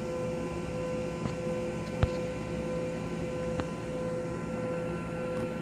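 Steady background hum with a constant tone, broken by three faint short clicks spread through it.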